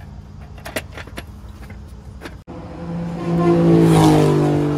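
A vehicle engine running with a low steady hum, with a few light clicks in the first two seconds. After a brief break about halfway through, the engine sound swells loud and then eases off.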